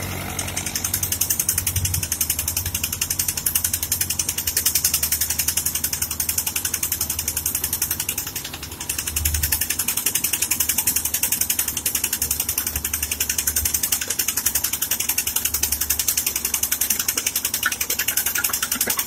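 Horizontal boring rig cutting a 500 mm bore under a road, its bore head turning in the exit hole: a fast, even mechanical clatter over a low engine hum. The clatter dips briefly about eight and a half seconds in.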